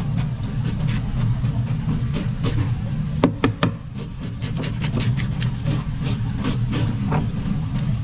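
A metal fish scaler scraping the scales off a sevenband grouper in quick, repeated rasping strokes, about three a second. A steady low machine hum runs underneath.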